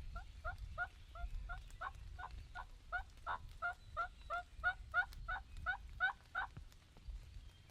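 Turkey yelping: a long run of about eighteen evenly paced yelps, about three a second, each note breaking from high to low. The run grows louder toward the end and stops about six and a half seconds in.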